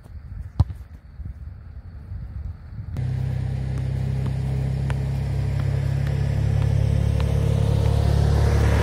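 A soccer ball is kicked with a sharp thud about half a second in. About three seconds in, a loud, low, steady rumble cuts in abruptly and slowly grows louder.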